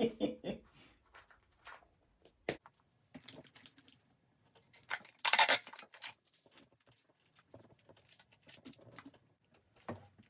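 Adhesive tape being handled: one short, loud rip of tape pulled off the roll about halfway through, among small clicks and rustles of hands at work, with a sharp click a couple of seconds in.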